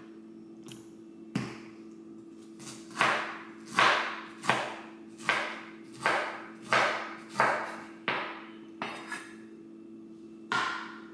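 Knife slicing through a pineapple and knocking down on a wooden cutting board, about a dozen cuts at roughly one every two-thirds of a second, over a steady low hum.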